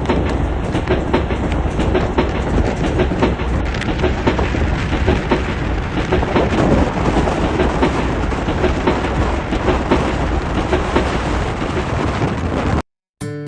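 Train running on the rails, with a dense rumble and a rapid clatter of wheels over the track joints; it cuts off suddenly near the end.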